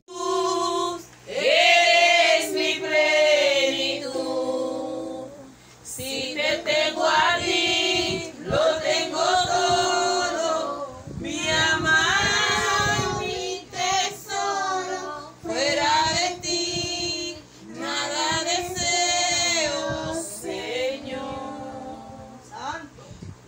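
A young girl singing into a handheld microphone, in sung phrases with short breaks between them.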